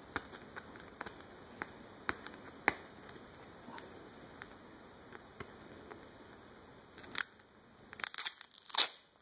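Plastic coin tube holding silver coins handled in the hands: faint scattered clicks, then a short burst of crackling and clicking near the end as the tube's cap is worked open.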